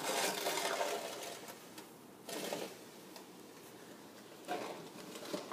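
Snow crunching and scraping in rough, noisy stretches: a longer one at the start, then short ones a little after two seconds and around four and a half seconds.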